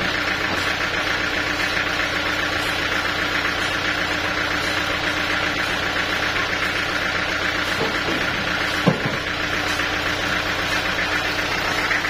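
An engine running steadily at idle, a continuous even hum. A single sharp knock about nine seconds in.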